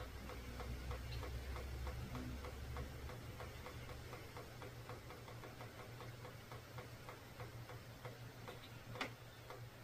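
A steady run of soft, even ticks, about three to four a second, over a low hum, with one sharper click about nine seconds in.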